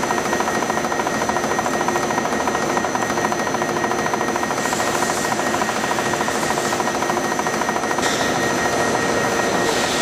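Corner-mill square-hole cutter machining a 10 mm square hole dry in S50C carbon steel on a milling machine: a steady, fast-pulsing grinding scrape of the cutter in the steel, with a thin constant whine over it. The cutting noise gets a little louder and hissier about eight seconds in.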